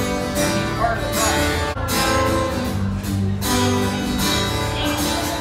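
Acoustic guitar strummed, with chords ringing out between strokes.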